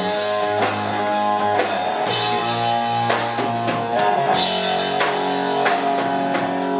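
Rock band playing an instrumental passage: guitar chords ringing over a steady drum-kit beat, with no singing.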